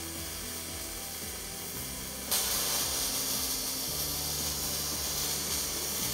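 Robotic gas-shielded (MIG/MAG) welding arc, a steady loud hiss that starts suddenly about two seconds in as the robot strikes the arc and lays a weld bead.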